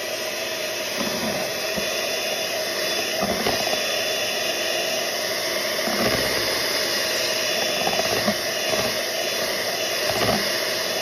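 Electric mixer running steadily at one speed, its beaters whipping a milk mixture, with a low bump every two seconds or so.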